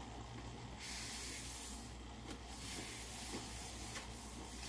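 Hands being dried on a cloth towel: a soft rubbing hiss that comes and goes in patches, over a faint steady low hum.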